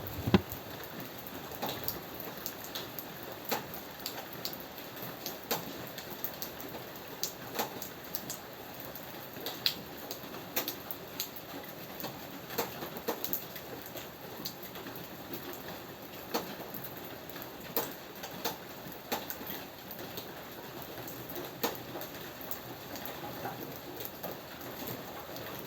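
Steady rain falling, with many individual drops ticking sharply on a hard surface over the constant hiss. One louder, deeper thump comes just after the start.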